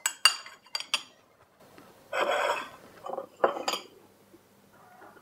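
A metal teaspoon clinking against a porcelain tea mug as tea is stirred: four sharp clinks in the first second, then a short scraping rub of crockery and another quick run of clinks a little past halfway.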